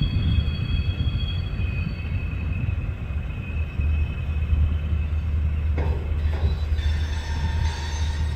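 Lockheed P-3 Orion's four Allison T56 turboprop engines droning as the aircraft flies in on approach: a deep, steady rumble with a faint high whine that fades in the first couple of seconds.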